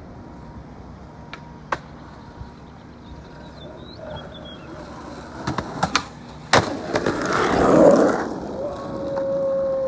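Skateboard ollie down a stair: a few sharp clacks of the board, one loud smack of the landing about six and a half seconds in, then the urethane wheels rolling on asphalt, swelling and fading. A steady tone sounds near the end.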